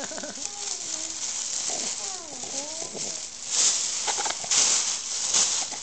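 Paper and a plastic gift bag rustling and crinkling as a toddler handles them, louder in bursts in the second half. Soft gliding vocal sounds in the first half.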